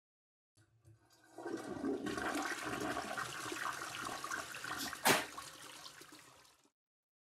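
Water rushing for about five seconds, after a couple of faint clicks, with one sharp crack just after five seconds in, then dying away.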